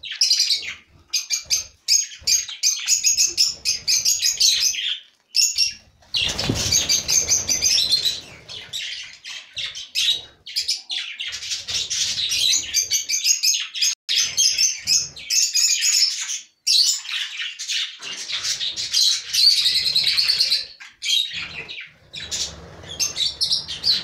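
Aviary flock of budgerigars chattering and warbling almost without pause, with wingbeats as birds fly about between the feeders and nest boxes.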